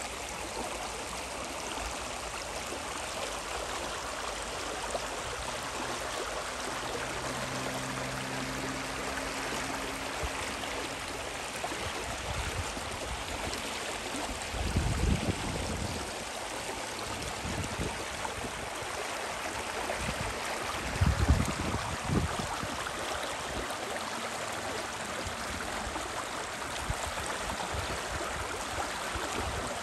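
The Spree river rushing steadily. Two brief low rumbles come about halfway through and again about two-thirds through.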